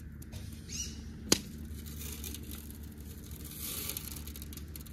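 Crackling and rustling from an outdoor wood cooking fire under a pot, with one sharp crack about a second in.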